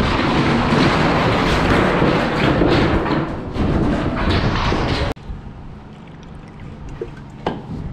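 Galvanized sheet-metal round duct being handled with gloved hands: dense metallic rattling and scraping that cuts off abruptly about five seconds in. A quieter low hum and a single click follow.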